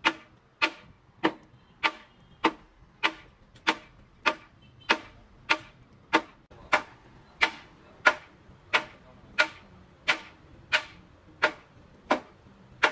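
A hammer striking metal in a slow, steady rhythm, about three blows every two seconds, each with a brief ring.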